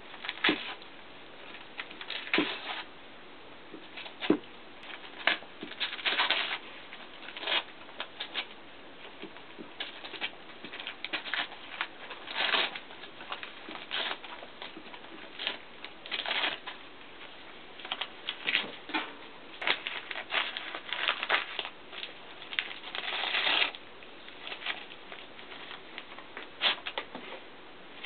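A dog ripping and rustling Christmas wrapping paper in irregular crackling bursts, some short and sharp and a few lasting about half a second.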